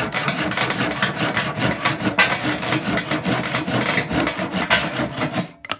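Hand saw cutting through a dry, dead Christmas-tree branch in quick back-and-forth strokes, stopping shortly before the end.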